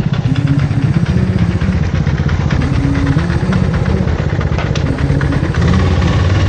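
Motorcycle engine running at low revs with small changes in engine speed, getting a little louder near the end.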